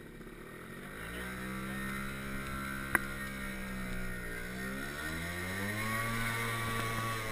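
Honda scooter engine pulling away: its pitch rises about a second in, eases off around the middle, then climbs again and holds steady. A single sharp click about three seconds in.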